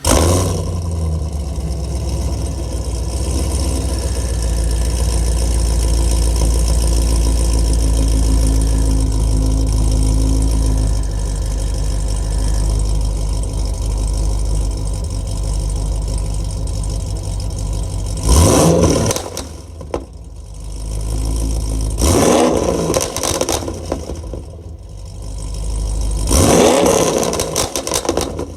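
A Pontiac G8 GT's 6.0-litre L76 V8 with long-tube headers, no catalytic converters and a Solo Mach shorty exhaust catches and idles steadily. It is then revved three times near the end, and each blip falls back with pops and crackles in the exhaust from a tune set to pop on deceleration.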